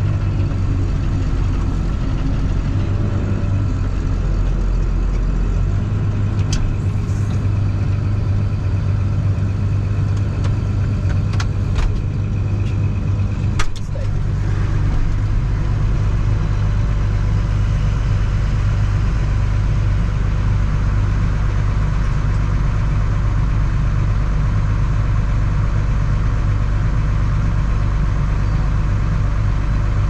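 Tractor's diesel engine running steadily, heard from inside the cab. About halfway through come a few clicks and a knock as the cab door opens, after which the engine and outside air sound more open.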